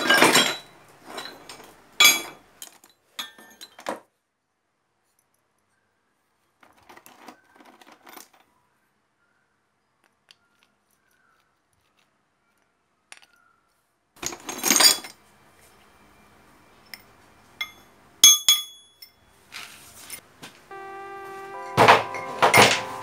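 Loose metal parts, sprockets and roller chain, clinking and clanking as they are rummaged and handled, in a few separate bursts with long silent gaps between. Music begins near the end.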